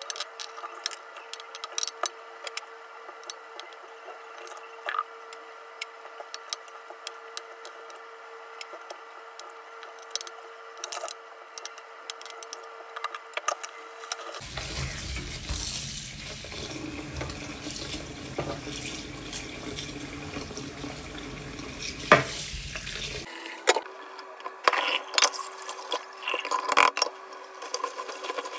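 Cauliflower florets being cut and snapped with a knife over a steel bowl: scattered sharp clicks and knocks over a steady hum. About halfway, a kitchen tap starts running into the steel bowl of florets and stops about eight seconds later. The clicks and knocks of the florets being handled in the bowl follow.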